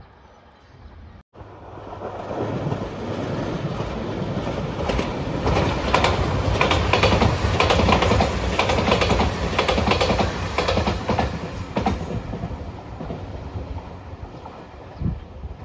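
Electric passenger train passing at speed, its wheels clattering over the rail joints. The noise builds from about two seconds in, is loudest with the clatter in the middle, and fades near the end.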